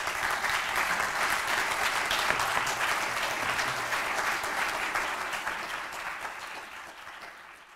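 Audience applauding: a dense patter of many hands clapping that tapers off over the last couple of seconds.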